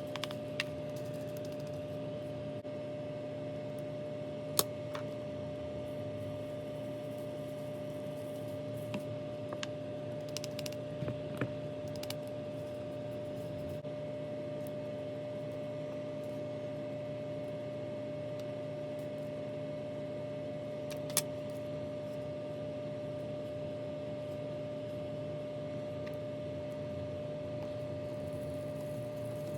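Steady electrical hum in a small room, with a few scattered light clicks and taps from craft supplies being handled during painting, one cluster of them a little over a third of the way in.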